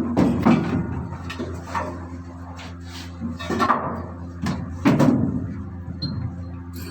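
Metal parts and tools clanking and knocking as engine parts are handled during piston installation, several separate clunks over a steady machinery hum.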